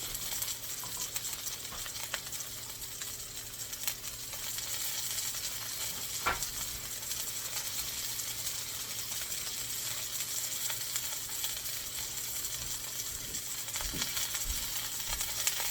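Homemade veal searing on a hot stovetop grill: a steady crackling sizzle, with a brief clink about six seconds in.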